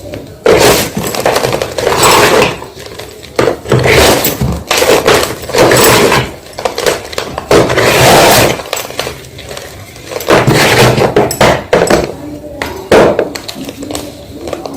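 Gym chalk being crushed, crunching and crumbling in a series of loud crackly bursts, each lasting up to about a second, with short gaps between them.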